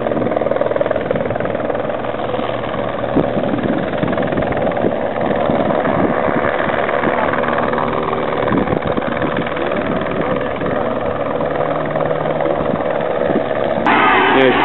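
Helicopter flying over the road, a steady rotor drone. About 14 seconds in, voices start shouting and cheering over it.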